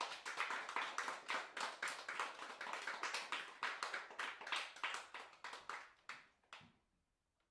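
A small group of people clapping, a dense patter of hand claps that thins out and stops near the end.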